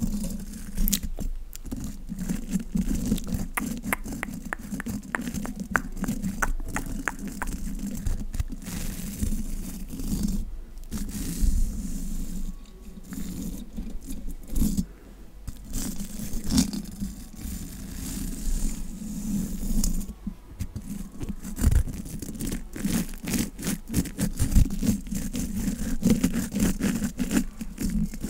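A small lash and eyebrow brush scraping against and close to the microphone in quick, irregular bristly strokes and clicks, with a few short pauses.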